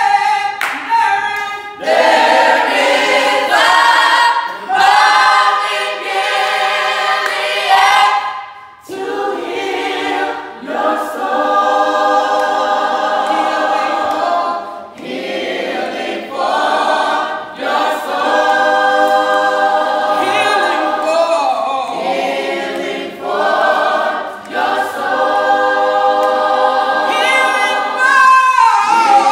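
A small group of men and women singing a gospel song a cappella in harmony, with no instruments: sustained chords in long phrases, broken by short pauses for breath.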